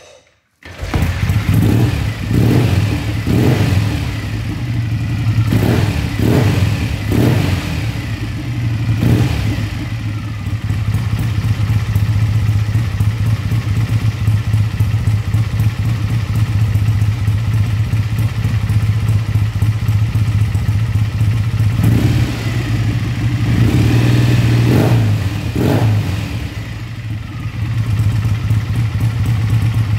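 BSA A65L Lightning's 650 cc parallel-twin engine starts on the kick about a second in and runs with a steady low beat, its throttle blipped in a series of short revs early on and again in a cluster near the end.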